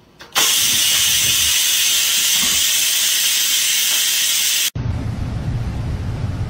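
Electric pressure cooker venting steam, a loud steady hiss that starts suddenly just after a cat paws the lid and cuts off about four seconds later. It gives way to a low, steady rumble.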